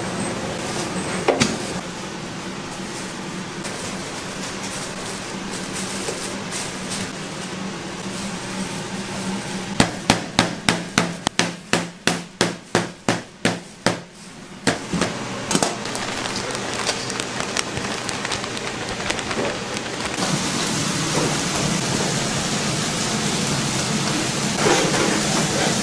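Kitchen sounds over a steady machine hum: about ten seconds in comes a quick, even run of about fifteen sharp knocks, roughly three a second, from something striking something hard. Around twenty seconds in, a steady hiss comes up.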